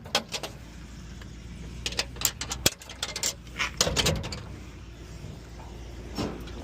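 A door and its latch being worked: a run of sharp clicks and knocks, with louder knocks about four and six seconds in, over a steady low hum.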